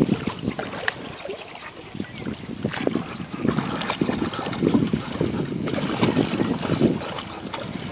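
Rottweiler wading and splashing in shallow lake water, in irregular bursts that grow busier after about three seconds, with wind buffeting the microphone.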